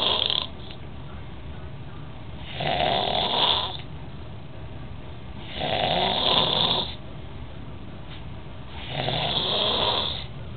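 A sleeping pet snoring in a slow, even rhythm: one snore trails off just at the start, then three more follow about three seconds apart, each lasting a second or so.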